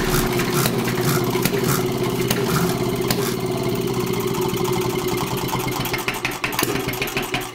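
An engine running with a steady hum, its pitch sagging slightly and its level easing off toward the end.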